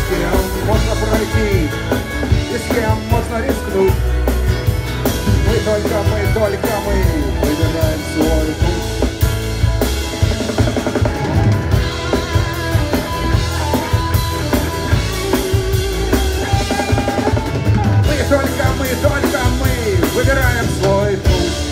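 Live rock band playing a song: drum kit, electric guitar and violin.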